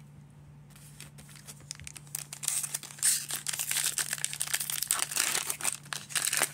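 A 2022 Donruss baseball card pack's foil wrapper being torn open and crinkled by hand: crackling starts about a second in and turns loud and dense from about two and a half seconds on.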